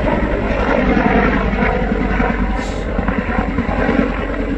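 Military helicopter flying overhead: a steady, loud rotor and engine noise.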